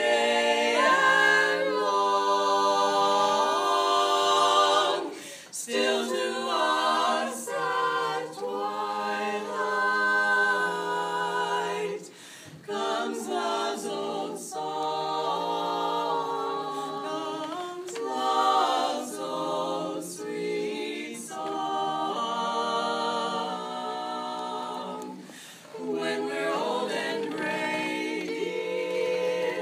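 Four women's voices singing a cappella in harmony, with long held notes and short pauses between phrases.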